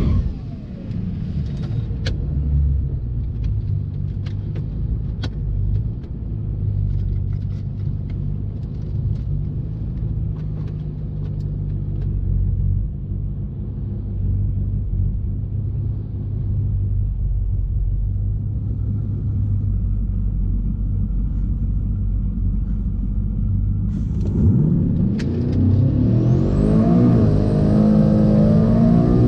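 Car engine running at a low steady speed with scattered faint ticks, then accelerating about 24 seconds in, its pitch rising. This is a car whose owner reports a misfire that comes on during gear shifts.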